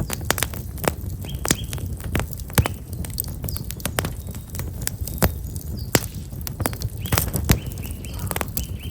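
Black locust firewood burning in an open fire, crackling with frequent sharp pops and snaps over a low steady rumble. Small birds chirp briefly a few times.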